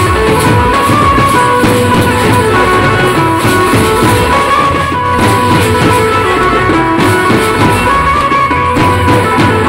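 Tasha band music: large bass drums and tasha drums beating with clashing hand cymbals, under a held melody line.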